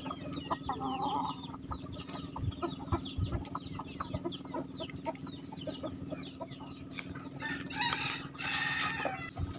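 Flock of free-range chickens and roosters clucking, with a rooster crowing and many quick high chirps throughout.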